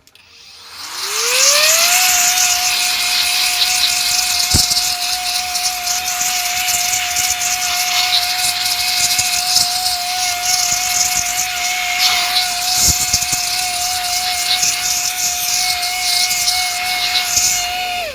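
A small high-speed electric fan or blower motor spins up over about two seconds to a steady high whine with a slight wobble, over loud rushing air, then cuts off abruptly near the end.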